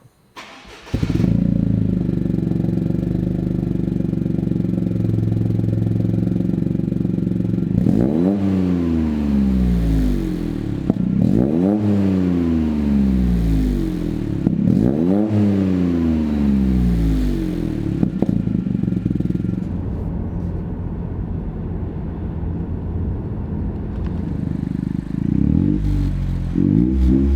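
Toyota GR Yaris turbocharged three-cylinder engine through a Milltek Sport GPF-back exhaust, running steadily and then revved up and back down three times in quick succession, settling again before a fourth rev near the end.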